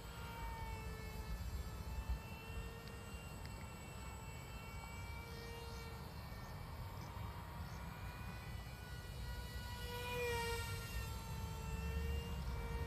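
High-pitched whine of a tiny brushless motor (0905, 10000kV) spinning a 3030 propeller on a small foam RC plane in flight. The pitch wavers up and down as the throttle and distance change, and it grows louder and brighter about ten seconds in as the plane passes close.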